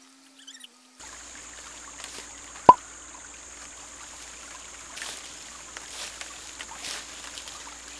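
Creek water trickling, with a single sharp knock about a third of the way in and a few softer thuds as a coil of black poly pipe is handled and unrolled across grass.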